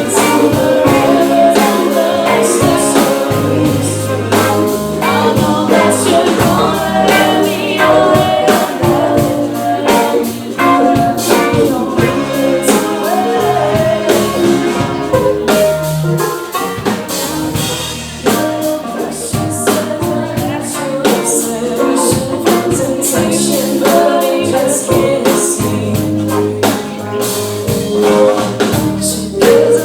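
Live band playing a pop/R&B song, with singing over a drum kit and the rest of the band.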